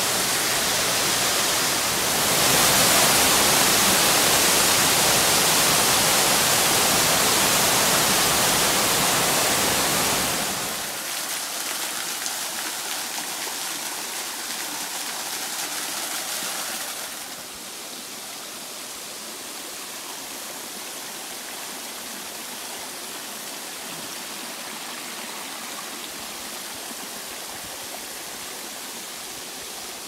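Waterfall pouring over mossy travertine rock: a steady rush of falling water, loudest over the first ten seconds or so, then dropping in two steps to a softer, even rush.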